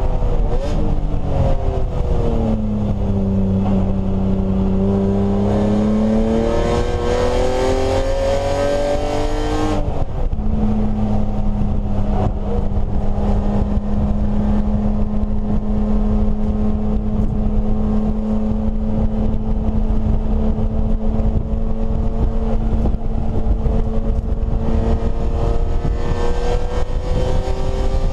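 BMW E30 race car's straight-six engine heard from inside the stripped cabin. The revs fall, then climb hard under acceleration. A quick upshift about ten seconds in drops the pitch, and the engine then pulls steadily in the higher gear with the note rising slowly.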